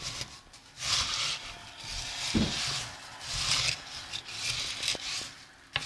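Spoon stirring chocolate crackle mixture of crisp rice cereal in a bowl: scratchy, rustling scraping strokes about once a second, then a sharp click near the end.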